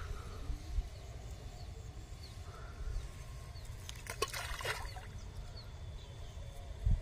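A ball of rice-bran groundbait plops into a pond about four seconds in, with a second short splash just after, over a low steady rumble.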